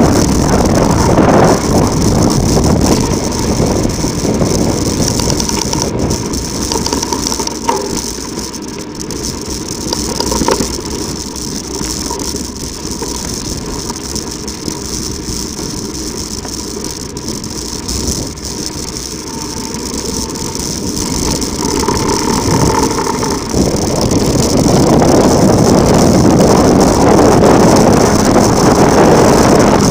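Mountain bike running downhill over rough, loose ground: continuous tyre noise and rattling of the bike, with wind on the microphone. It eases off for a stretch in the middle and grows louder again for the last few seconds.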